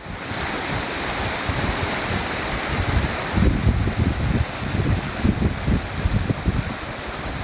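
Steady rushing of flowing water, with wind buffeting the microphone in irregular gusts from about halfway through.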